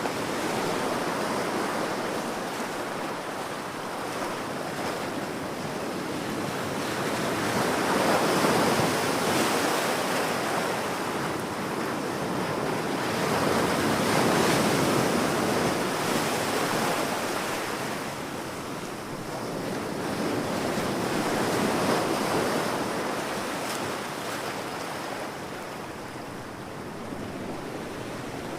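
Ocean waves washing ashore in a steady rush of surf that swells and ebbs, with louder surges about 8, 14 and 22 seconds in.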